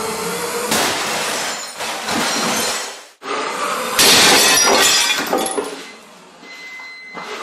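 A heavy wheeled robot of nearly 300 pounds smashing into objects: crashing and breaking glass for the first few seconds. After a break, a louder crash of wood and debris about four seconds in, dying away.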